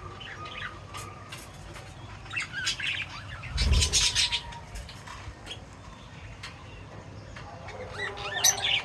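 Pet birds chirping, many short overlapping chirps, with a louder noisy burst about three and a half seconds in and another near the end.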